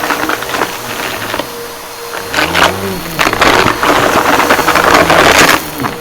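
Bissell PowerForce Helix upright vacuum running over a pile of crunchy debris, the brush roll crackling and clattering as it sucks up the bits. The crunching is loudest in the second half.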